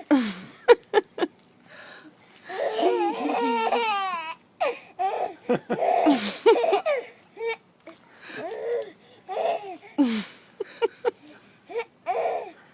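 A baby giggling in repeated bursts of laughter, broken by short, sharp hiccups.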